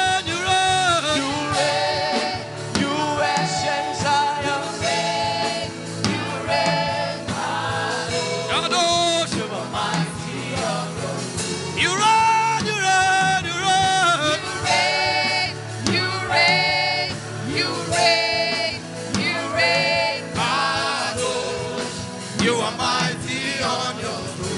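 Gospel worship music: voices singing held, wavering notes over steady instrumental accompaniment.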